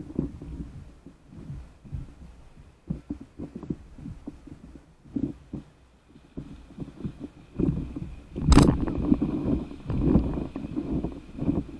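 Seawater sloshing and slapping against a paddle board close to the microphone, heard as irregular low knocks. It grows louder in the last few seconds as the board rides a small breaking wave, with one sharp knock about two-thirds of the way through.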